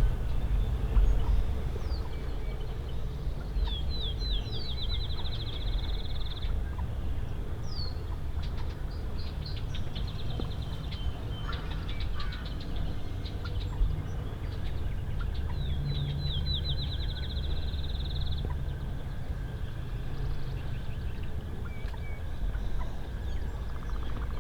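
Birdsong with wild turkeys gobbling: a small songbird sings two fast trills about ten seconds apart, over a steady low rumble.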